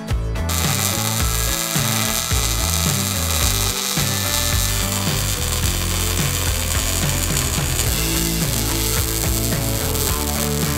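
MIG welder arc crackling steadily as brackets are welded onto a truck's rear axle housing, over background music.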